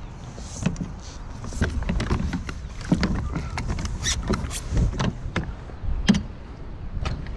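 Irregular knocks and clatter of gear against a plastic fishing kayak and its camera arch, over a low rumble, as the boat and mount are jostled.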